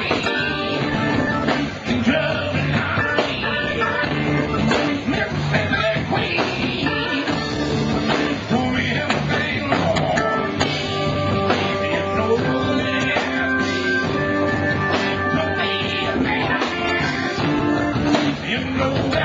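Live blues-rock band playing: electric guitar over a drum kit, with held guitar notes in the middle stretch.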